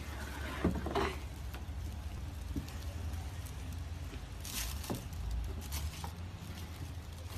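Faint scuffling and a few light taps as a golden retriever puppy scrambles out of a cardboard gift box onto tiles, over a low steady rumble.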